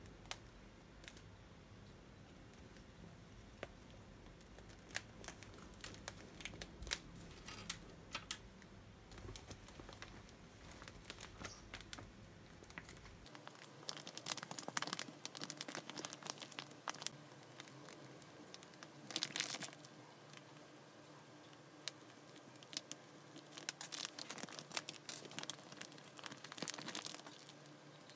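Clear plastic sheeting crinkling and crackling as it is handled, in irregular bursts that grow busier in the second half.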